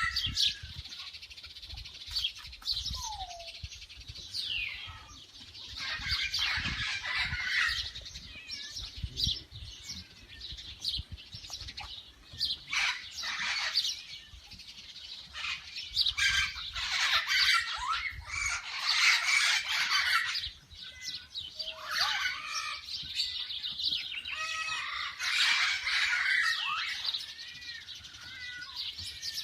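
Many small birds chirping and twittering together in overlapping calls and trills, with a low rumble underneath for roughly the first two-thirds.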